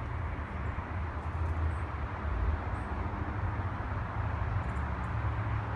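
Steady city traffic noise: a continuous low rumble under an even wash of noise.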